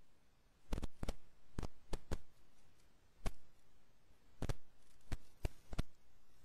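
Computer mouse and keyboard clicking: about a dozen short, sharp clicks at uneven intervals as text is selected and copied.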